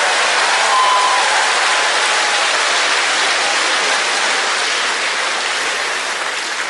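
Studio audience applauding, a dense steady clapping that eases a little near the end.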